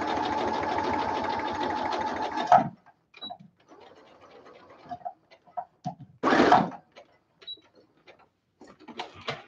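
Brother sewing machine running steadily as it top-stitches fabric, then stopping abruptly with a click about two and a half seconds in. Light clicks and handling noises follow, with one brief louder rustle about six seconds in.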